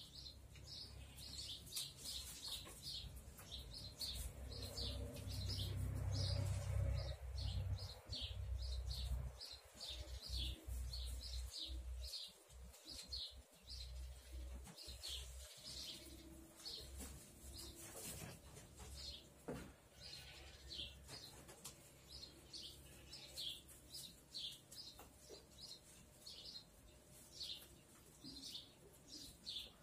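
Small birds chirping repeatedly, short high calls about once or twice a second throughout. A low rumble underlies the first half and is loudest around the middle.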